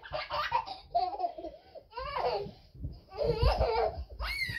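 A young girl laughing and squealing in short bursts while being swung in a blanket, with a soft bump about three and a half seconds in as she tumbles out onto the sofa cushions.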